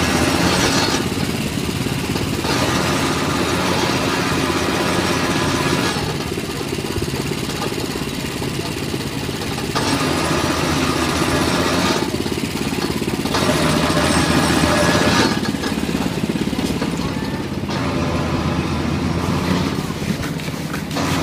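Motorised sugarcane juice press running steadily, with spells of crackling and crunching as cane stalks are fed through and crushed between its steel rollers, several times, each spell lasting a few seconds.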